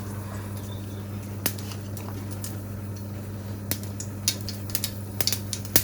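Mustard seeds popping in hot oil in a pan for tempering: scattered sharp pops, sparse at first and coming more often in the last couple of seconds as the oil gets hot enough.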